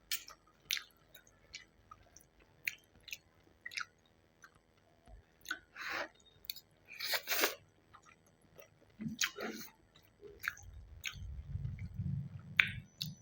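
Close-miked chewing of Maggi instant noodles: irregular wet mouth clicks and smacks, a couple of longer ones about halfway through, and a low rumble near the end.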